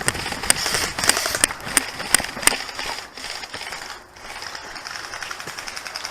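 Irregular sharp clicks, about two a second, over a crackling rustle; they fade after about three seconds.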